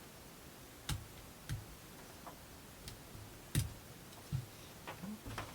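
Small laser-cut plywood pieces being popped out of a wooden model-kit sheet: a handful of irregular sharp clicks and snaps, the loudest about a second in and just past the middle.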